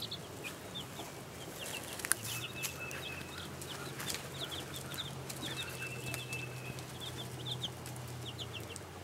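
Two-week-old chicks peeping: many short, high chirps in quick runs, faint and continuous.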